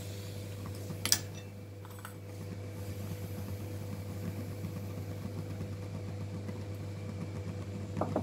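Steady low hum under a single metal clank about a second in, then faint pouring of hot fenugreek decoction through a tea strainer into a steel bowl.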